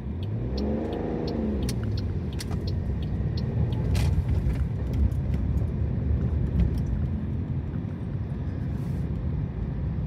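Car on the move, heard from inside the cabin: a steady low rumble of engine and road noise with scattered light clicks. In the first two seconds a double-decker bus passes close alongside, and its engine note rises and then falls.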